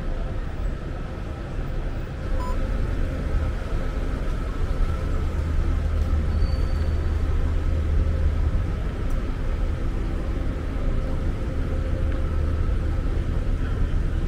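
Steady urban traffic rumble: a continuous low drone of passing and idling vehicles, with a faint steady hum on top.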